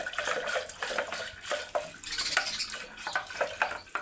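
Curd being churned into lassi with a wooden hand churner (mathani) twirled between the palms in an aluminium pot: liquid sloshing and swishing in quick repeated strokes, about three or four a second.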